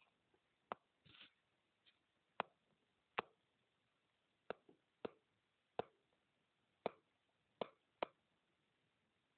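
Stylus tapping on a tablet screen while words are handwritten: about ten short, sharp clicks spaced irregularly, with near silence between them.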